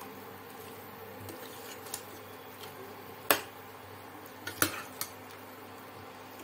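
Metal ladle stirring cauliflower and minced meat in a metal pressure cooker, with a few sharp clinks of the ladle against the pot, the loudest about three seconds in.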